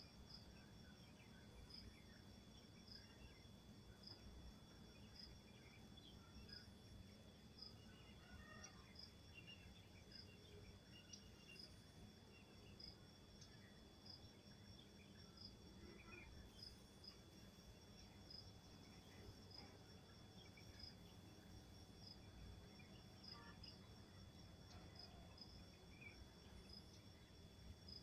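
Faint insects chirping: one regular high chirp about once a second over a steady high trill. Scattered faint chirps and a low background rumble lie underneath.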